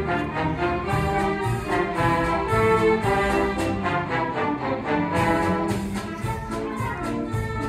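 Youth orchestra playing live, strings and brass together in sustained, full chords.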